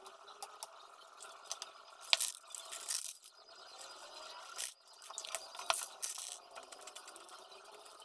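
Aerosol spray paint can sprayed in several short hissing bursts, the longest about two seconds in and another near six seconds, with a few sharp clicks and clinks between.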